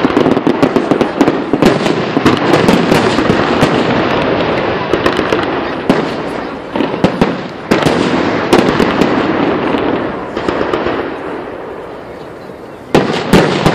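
Aerial fireworks shells bursting in rapid succession, a dense run of bangs and crackling. The barrage thins and quiets about ten seconds in, then a fresh loud volley starts suddenly near the end.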